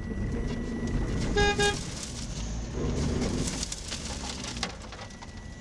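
Mitsubishi L200 pickup's engine revving in two surges as its wheels spin in soft sand, failing to free the stuck truck. A brief pitched tone sounds about one and a half seconds in.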